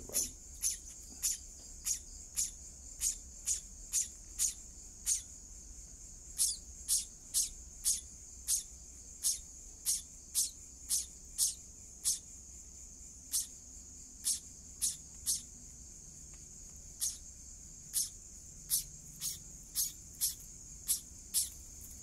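Songbird nestlings begging while being fed, giving short high-pitched chirps about two a second, irregularly spaced with brief pauses, over a steady high-pitched insect drone.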